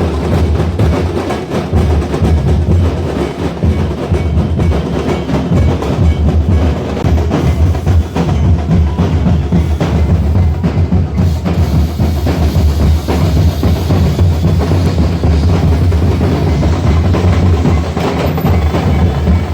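Procession drums playing loudly and continuously: a dense run of strokes over a heavy, booming bass drum.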